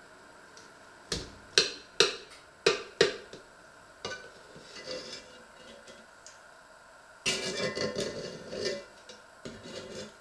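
A metal utensil knocking sharply against an enamelled cast-iron pot, five hits within two seconds starting about a second in, then scraping and clattering in the pot as cooked meat is lifted out, with a dense run of clatter about seven seconds in.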